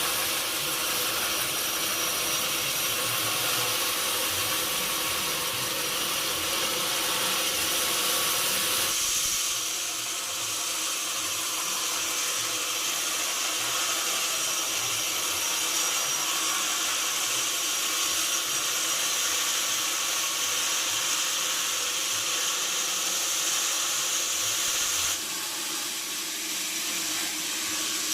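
Sawmill saw running and cutting through mahogany wood, a steady dense hiss with a faint hum beneath. The sound shifts about nine seconds in and again near the end.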